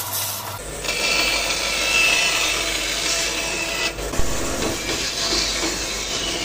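Band saw running, its blade cutting through a stack of thin plywood boards. The sound shifts abruptly about half a second in and again near the middle where clips are joined.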